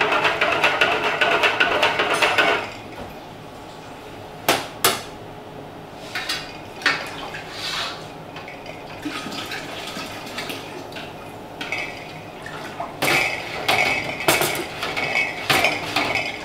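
A metal spoon stirring fast in a plastic pitcher of milk and yogurt starter, a quick even clatter that stops after about two and a half seconds. Then scattered clinks and knocks of a metal measuring cup against a stainless steel stockpot as the culture is mixed into the milk, with some liquid pouring.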